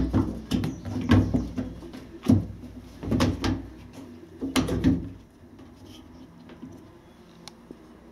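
Knocks and clatter of washing machine panels and parts being handled and fitted, several sharp bangs in the first five seconds, then only faint clicks.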